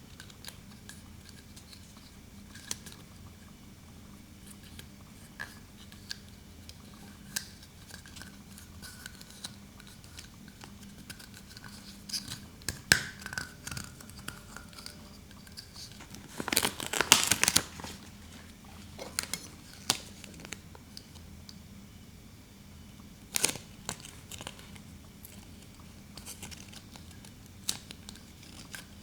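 Toy packaging and small plastic toy pieces being handled during an unboxing: scattered light clicks and taps, with a burst of crinkling, tearing packaging about halfway through and a few sharper clicks.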